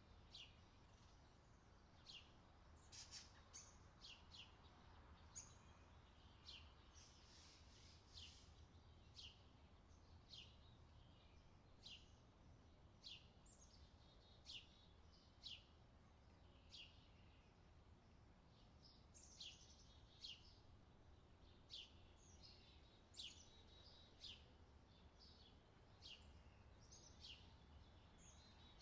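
Faint outdoor summer ambience: birds chirping with short, high, falling notes about once a second, some in quick pairs, over a steady low rumble.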